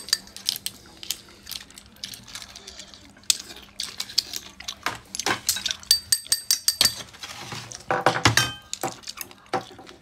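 Cooked clam shells clicking and clinking against each other and a stainless steel bowl as clams are picked out by hand and with chopsticks. A brief metallic ring comes about six seconds in.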